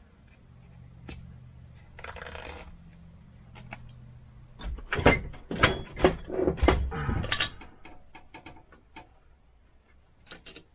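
A quick run of sharp metal clicks and knocks from engine parts being handled and set down, loudest in the middle, followed by a few lighter ticks and two more clicks near the end. A faint steady hum sits under the quieter first half.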